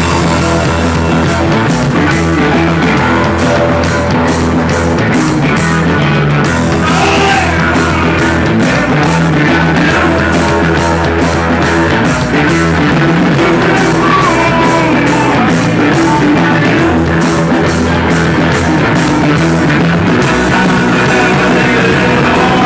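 A live rock band playing loudly: electric guitars over a kit drummer keeping a steady beat with cymbal hits.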